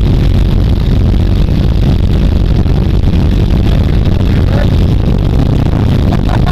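Several motorcycle engines idling and running at low speed in a group of riders pulling away: a loud, steady rumble, with one bike close by.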